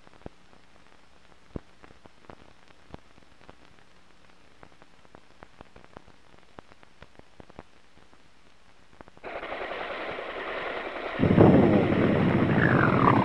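Scattered clicks and pops of an old film soundtrack over the leader. About nine seconds in, a steady rushing helicopter noise starts, and about two seconds later a TOW missile fires from an AH-1 Cobra with a loud, sudden rush, followed near the end by a whine falling in pitch.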